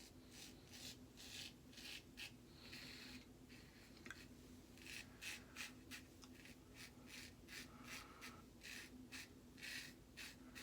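Faint, short scratchy strokes of an Autostrop safety razor's blade cutting stubble during touch-up passes, in quick runs with a brief pause about three seconds in.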